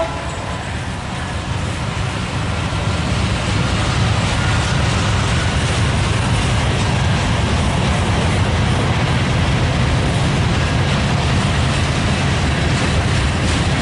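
Freight train rolling past, a steady rumble of the locomotive and cars on the rails that grows a little louder over the first few seconds.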